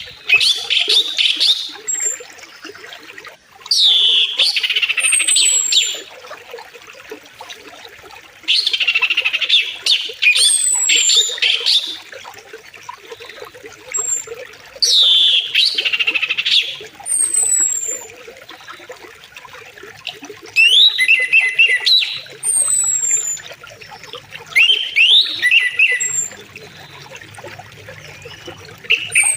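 Birds calling in loud phrases that recur roughly every five seconds, with thin high descending whistles between them, over the faint steady run of a river.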